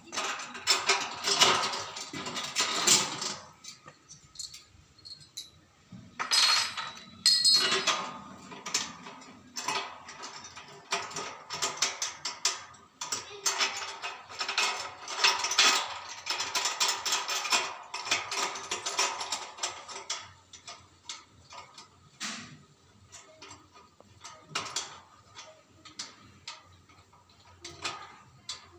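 Spanner clicking and clinking against the nuts and bolts of a satellite dish's metal mounting bracket as it is tightened onto the pole, in rapid runs of metallic clicks with short pauses and a brief ringing clink now and then.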